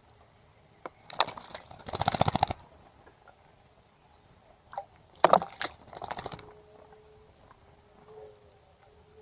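A bird bathing in a bird bath, splashing water with its wings: two short bouts of rapid wing-fluttering splashes, about a second in and again about five seconds in.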